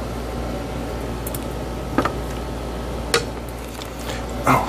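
Three light knocks and clicks of things bumped on a workbench as a soldering iron is picked up, over a steady low hum.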